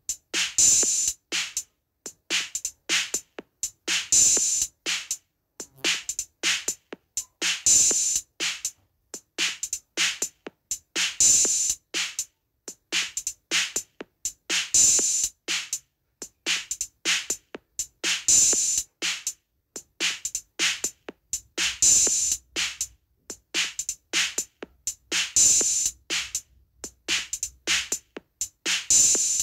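Looped drum rhythm for a Turkish halay dance, quick sharp hits with little bass, the same phrase coming round about every three and a half seconds with a louder accent.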